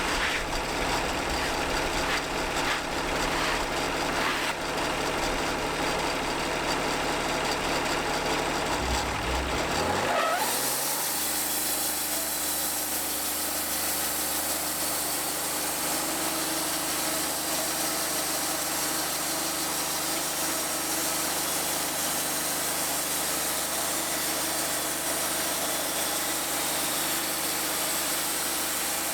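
Portable band sawmill's engine idling, then revving up with a rising pitch about ten seconds in. It settles into a steady, hissing run as the band saw works.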